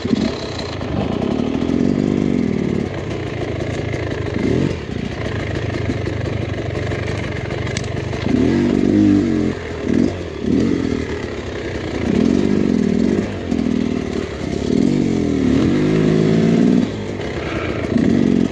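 Dirt bike engine running and revving in repeated short bursts, its pitch rising and falling as the throttle is opened and closed at low speed over rough, brushy ground.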